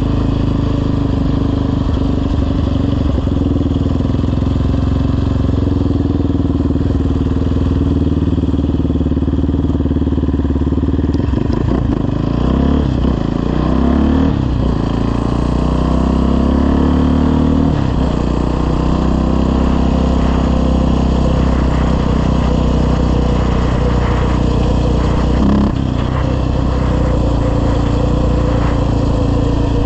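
Yamaha Raptor 700R quad's single-cylinder four-stroke engine, breathing through a full CT Racing aftermarket exhaust and FCI intake, running under way as the quad is ridden. Its pitch rises and falls several times about halfway through as it is revved and shifted, with another short change near the end.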